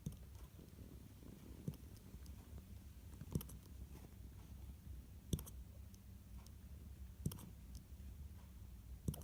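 A two-month-old Shiba Inu puppy hiccuping: a short, sharp hic about every two seconds, five times.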